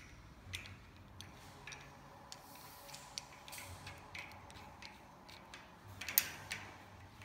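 Small metallic clicks and taps as a metal rod, washer and plastic bushing are worked into place on a wire shopping cart frame, with a louder cluster of clicks about six seconds in.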